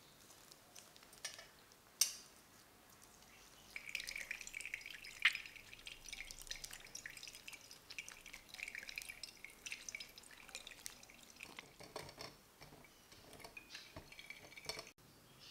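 Lemon halves twisted and squeezed on a wooden reamer, with a wet, crackly squelch of pulp and juice splashing and dripping through a metal mesh strainer into a glass measuring jug. There is a sharp click about two seconds in, and toward the end only scattered drips and small clicks are left.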